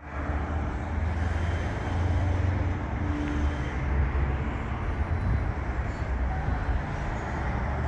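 Steady city traffic noise with a low rumble.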